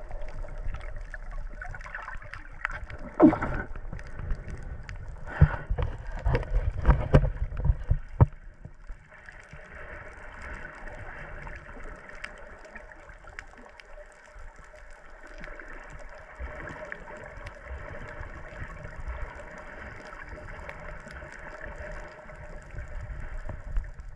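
Underwater sound picked up through an action camera's waterproof housing: a steady muffled hum with a few constant tones, broken between about two and eight seconds in by a run of sharp knocks and thumps against the housing.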